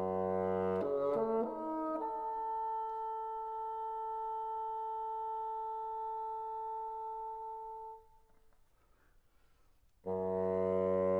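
Solo bassoon: a low held note, a quick run of notes about a second in, then a long held higher note that stops about eight seconds in. After a pause of about two seconds, a low held note starts near the end.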